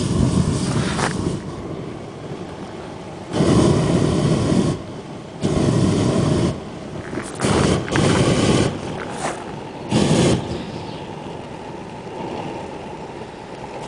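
Homemade jet engine running with a steady rushing noise, throttled up in several surges that each last about a second.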